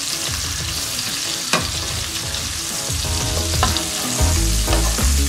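Marinated chicken drumsticks sizzling steadily as they shallow-fry in oil and butter in a kadai, with a spatula scraping and tapping the pan as the pieces are turned, twice with a sharp tap.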